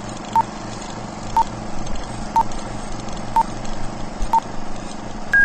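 Film-leader countdown sound effect: five short beeps, one a second, over steady background noise, then a higher-pitched beep at the end.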